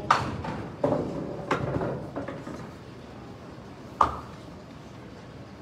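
A duckpin ball strikes the pins at the far end of the lane, and the wooden pins clatter and knock for a second or two. A single sharp knock follows about four seconds in.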